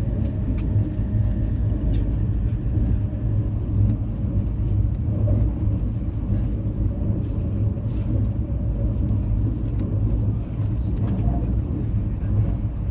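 Running noise inside the motor car of an E257-series electric limited express train: a steady low rumble of wheels on rail and the car's running gear.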